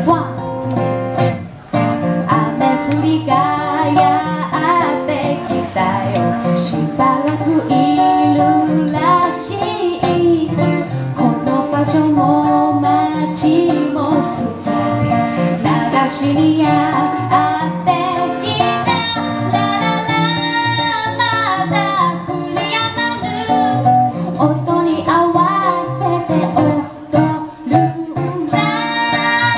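Live acoustic pop song: a woman singing into a microphone over a strummed acoustic guitar, amplified through a PA. About two-thirds of the way through she holds a long note with vibrato.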